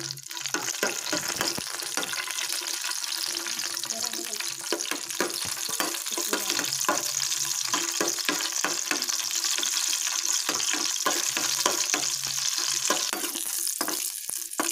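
Cashews and raisins sizzling in hot ghee in a pan, a steady hiss, while a steel spoon stirs them with many short clicks and scrapes against the pan.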